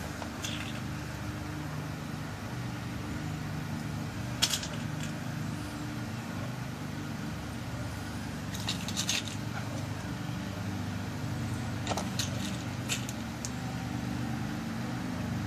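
Small metal clicks of new tumbler pins being dropped into a lock cylinder while it is rekeyed: one click a few seconds in, a short cluster near the middle, and a few more later. Under them runs a steady low hum.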